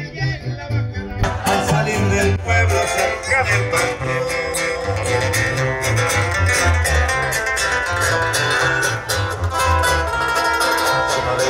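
Live banda music heard from the crowd: a sousaphone bass line pulsing under acoustic guitar and drums, with the full band coming in loudly about a second in.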